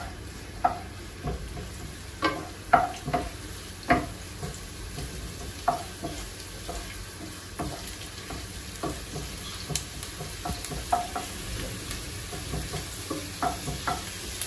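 Finely diced onion sizzling as it fries in a little olive oil in a nonstick frying pan. A wooden spoon stirring it knocks and scrapes against the pan at irregular intervals.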